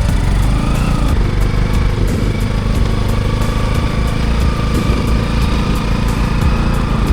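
Motorcycle engine running steadily while under way, with a faint whine above the drone that rises slightly about a second in.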